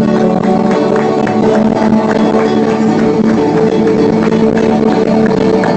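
Live worship band music, loud in the room: electric guitars playing held chords over a steady beat.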